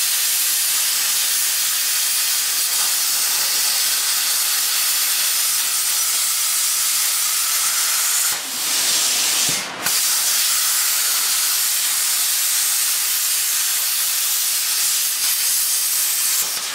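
Plasma cutter cutting through a steel frame crossmember: a steady, loud hiss from the arc and its air, broken twice briefly about halfway through as the cut is paused and restarted.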